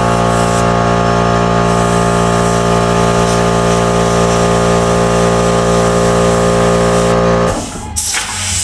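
Small airbrush air compressor running with a steady, loud hum and a light hiss, cutting out about seven and a half seconds in.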